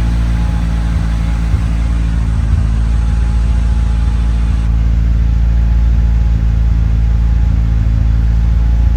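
A 2.3-litre turbocharged engine in a hot-rod Ford Roadster idling steadily, with a couple of faint hitches a second or two in. The owner reports an erratic idle and misfires, which he puts down to the mass airflow sensor.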